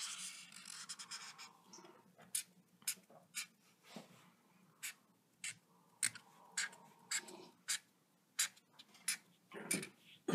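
Thick black felt-tip marker drawing on paper: one longer scratchy stroke at first, then a string of short quick strokes, about two a second, as the rays of a sun are drawn.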